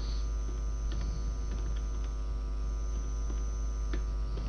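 Steady electrical hum with a few faint, scattered computer keyboard key clicks as a six-character password is typed.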